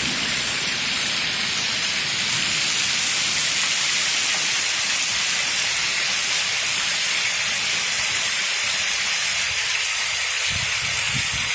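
Heavy rain pouring down, a steady loud hiss.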